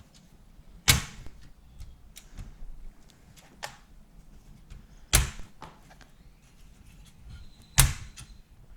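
Three sharp knocks, about a second in, in the middle and near the end, with lighter clicks and taps between them, from PC parts being handled against a small-form-factor computer case.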